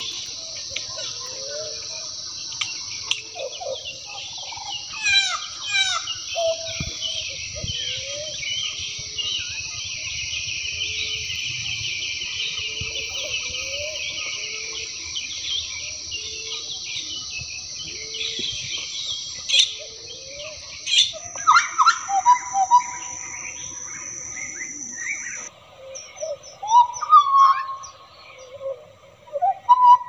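Hooded butcherbird singing: short, low, fluted whistles that glide up and down, repeated over and over against a steady high drone of insects. About three-quarters of the way in, the insect drone cuts out suddenly and the whistled phrases come louder and more varied.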